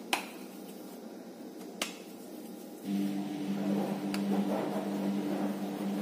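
Washing machine running through its wash cycle: a steady motor hum that stops, then starts up again about three seconds in. A few sharp clicks, the first the loudest, come at the start, near two seconds and about four seconds in.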